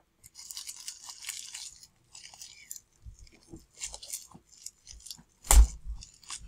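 Crinkling and tearing of a shipping package being pulled open by hand, in bouts, with one loud thump about five and a half seconds in.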